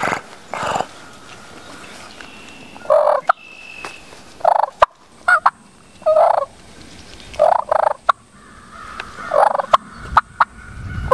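Turkey purrs made on a triple-reed batwing diaphragm call: about six short, rolling purrs, each under half a second, a second or two apart. The purr is made by rolling the back of the throat while whistling through the lips.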